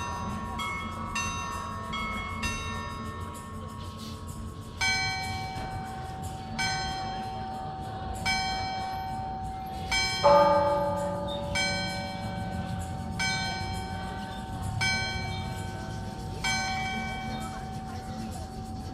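Church bells ringing: a smaller bell strikes in quick strokes for the first few seconds, then a deeper bell takes over with slower, evenly spaced strokes, each ringing on into the next. The loudest strike comes about halfway through.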